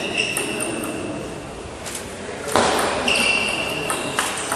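Table tennis rally in a large sports hall: a handful of sharp clicks as the celluloid ball strikes the paddles and table, with high, steady squeaks of players' shoes on the court floor near the start and again toward the end.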